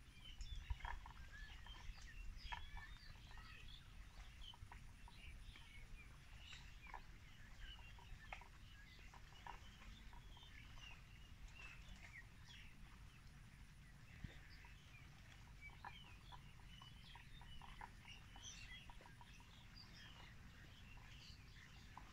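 Faint, scattered chirps and short calls of small birds, several a second, over a low outdoor rumble. A faint thin high whine sits underneath for the first six seconds and again from about twelve to nineteen seconds in.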